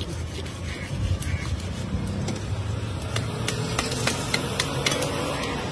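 A knife cutting and scraping through the scaly skin and flesh of a large catla fish, with a run of sharp clicks in the second half. Underneath is a steady low rumble of road traffic.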